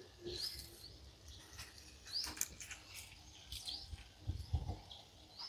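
Birds chirping: short rising chirps repeated every second or so, with a couple of low soft thumps about four seconds in.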